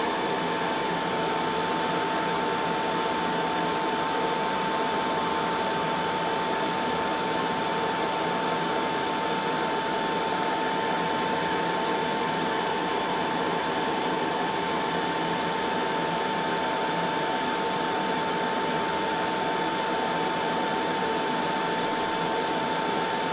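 Solder fume extractor fan running steadily: a constant airy hiss with a steady high whine.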